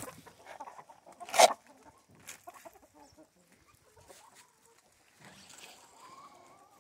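Chickens clucking quietly as they crowd in to feed on scattered corn, with one short, loud, scratchy burst about a second and a half in and faint calls after it.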